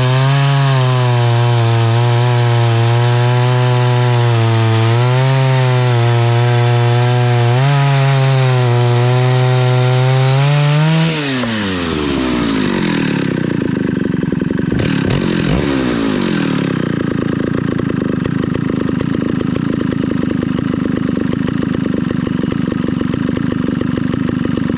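Stihl 051 two-stroke chainsaw of about 89cc running at full throttle through a cut in wood, its pitch sagging slightly and picking up again a few times. About eleven seconds in, the throttle is released: the engine note falls away and settles into a rough, uneven idle.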